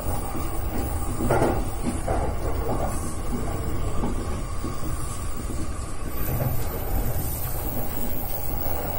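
Electric commuter train running slowly, heard from inside the driver's cab: a steady low rumble of wheels on rail with a faint steady hum, and a few brief louder rattles about a second and a half to three seconds in.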